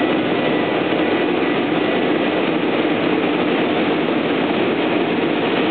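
A passenger train running through the station without stopping: a loud, steady rush of wheel, rail and engine noise.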